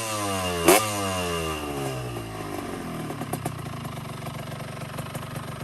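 Yamaha RX-Z 135 two-stroke single with a stainless-steel expansion-chamber exhaust, its revs falling away after a blip of the throttle. There is one sharp pop from the exhaust shortly after it starts. The engine then settles into a rattly, ticking idle.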